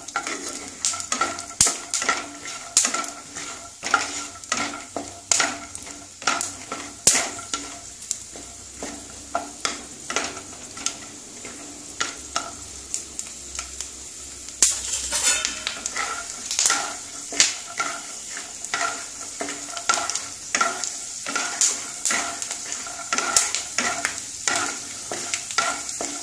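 Peanuts frying in mustard oil in a non-stick kadai, with a steady sizzle, while a wooden spatula stirs them, giving irregular clicks and scrapes against the pan, one or two a second. The peanuts are being browned until reddish.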